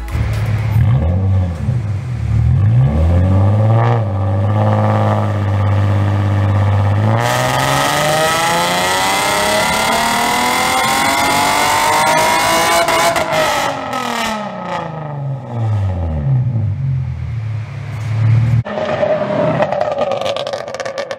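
2004 Infiniti G35 sedan's VQ35DE V6 running through a Greddy cat-back exhaust with test pipes. The engine is revved in short blips and held briefly, then climbs steadily to high rpm over about six seconds and falls back. More blips follow, and near the end the car is heard driving off.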